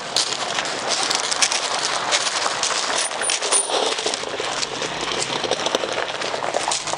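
Footsteps crunching on loose gravel: a dense, irregular run of small clicks and crackles.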